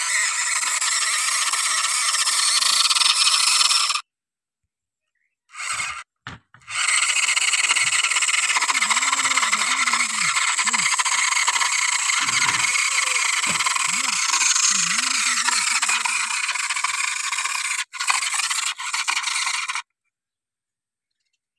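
A harsh, steady grinding rasp from the small electric motor of a homemade toy tractor, running in several stretches that cut off suddenly about 4 seconds in, again around 6 to 7 seconds, and for good near the end.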